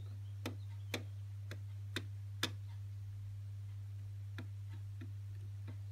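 Light, sharp ticks, five about half a second apart, then a few fainter ones later, over a steady low hum.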